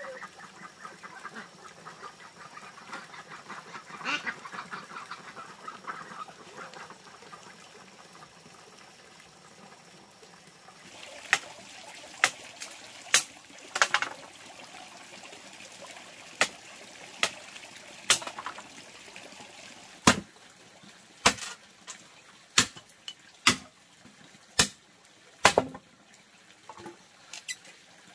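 Domestic ducks quacking over water trickling from a bamboo pipe. About eleven seconds in, this gives way to a large knife chopping a wooden board into kindling: sharp chops, irregular at first, then about one a second.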